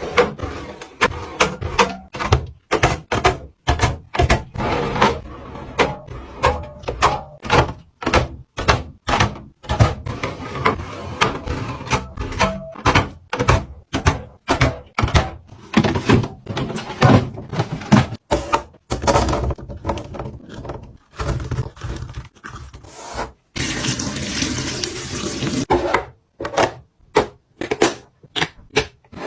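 Food containers, jars and bottles being handled and set down while a fridge is restocked: many separate knocks, clicks and thunks with short silent gaps, and a few seconds of steady rushing noise about two-thirds of the way through.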